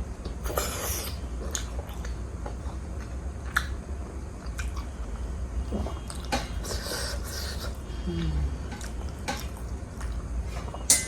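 Chewing of pork momo dumplings, with scattered short mouth clicks and smacks.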